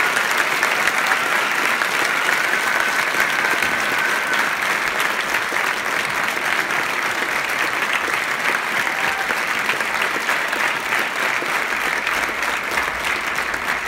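Audience applauding steadily, a dense patter of many hands clapping that eases slightly toward the end.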